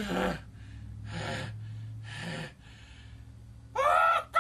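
A man's non-verbal vocal noises: a short falling grunt at the start, then two loud breathy gasps about a second apart, then a loud strained wailing cry near the end.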